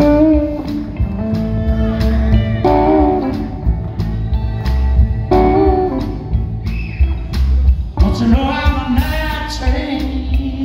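Live blues band playing: several electric guitars over bass and a steady drum beat, with a lead guitar bending notes.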